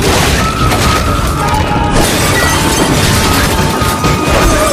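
Loud music mixed with crashing noises.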